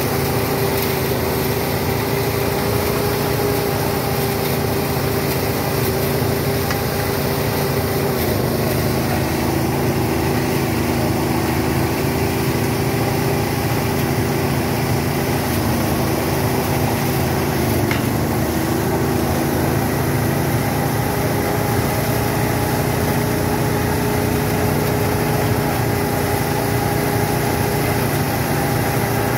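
Small engine of a rice thresher running steadily, its pitch sagging briefly twice, about a third of the way in and again past the middle.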